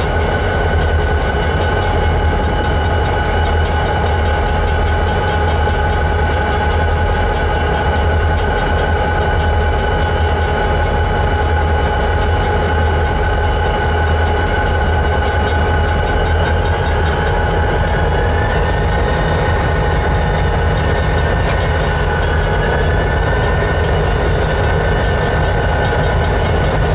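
EMD GP40-type diesel locomotives passing slowly at a grade crossing, their engines giving a deep, steady throb. Steady high ringing tones sound over it, and one of them steps up in pitch about two-thirds of the way through.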